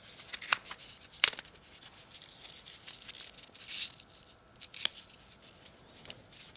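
An Apple Watch Ultra's orange band being fastened around a wrist: soft rustling of the band and hands, with a few sharp clicks, the loudest about half a second, 1.3 seconds and nearly 5 seconds in.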